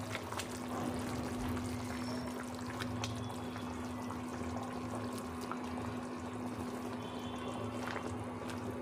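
Curry gravy simmering in an aluminium kadai, with soft liquid sloshing and a few light clicks as fried omelettes are slid into it one by one. A steady low hum runs underneath.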